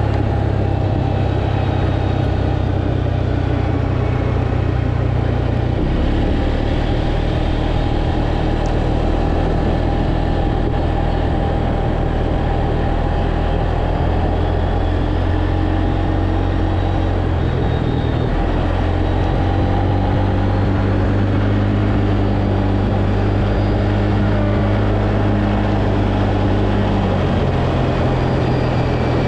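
Tracker ATV engine running under way, a steady drone whose pitch steps up or down a few times as the throttle or speed changes.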